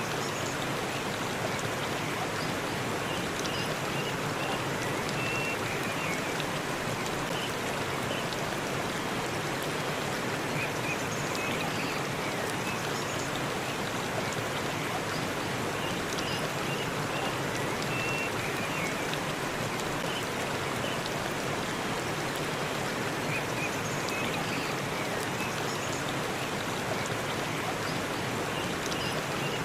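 Waterfall in a forest: a steady rush of falling water, with faint short high chirps every few seconds.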